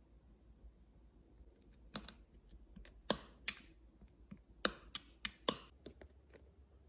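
A run of about a dozen sharp, separate taps or clicks, uneven in spacing, starting about two seconds in and the loudest of them coming between three and five and a half seconds in.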